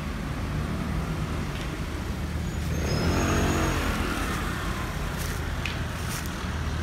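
Street traffic at low speed: a car and a small scooter drive past close by. The loudest pass, an engine note that swells and bends in pitch, comes about three seconds in.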